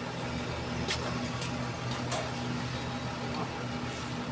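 Diesel engine idling steadily with a low, even hum, with a few sharp taps about a second and two seconds in.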